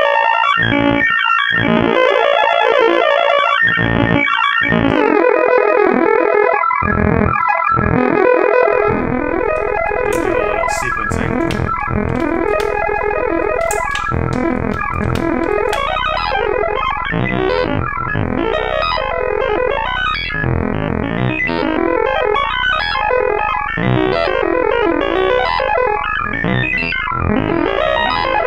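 Make Noise Spectraphon spectral oscillator in a Eurorack modular synthesizer, stepping through its spectral array as separate clocked notes, about two a second. The tone turns duller about five seconds in. About a third of the way through, the notes merge into a continuous, shifting tone over a low drone.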